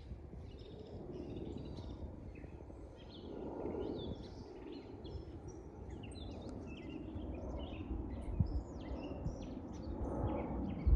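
Birds chirping steadily over the low rumble of a twin-engine widebody jet airliner flying overhead, the rumble swelling briefly a few seconds in and again near the end.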